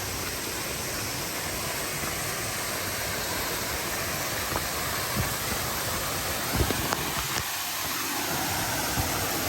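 Waterfall pouring into a pool: a steady, even rush of falling water, with a few faint knocks about two-thirds of the way through.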